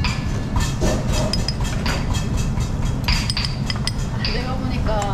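Metal spoons and small dishes clinking again and again as the dressing ingredients are measured in and mixed, over a steady low rumble.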